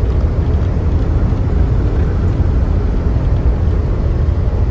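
Short-wheelbase semi truck under way with a load, a steady low engine and road rumble.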